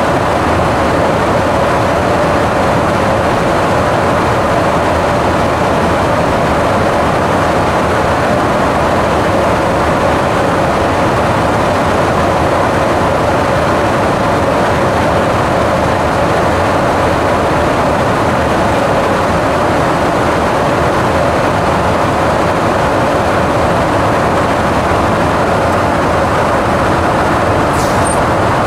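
Steady, loud cabin noise inside a KC-135 Stratotanker in flight: the drone of engines and rushing air, with a steady hum running through it.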